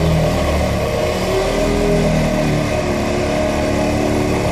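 Excavator-mounted vibro hammer running while it drives a steel pile, over the excavator's diesel engine: a loud, steady mechanical drone with a fast low pulsing and several tones that step up and down in pitch.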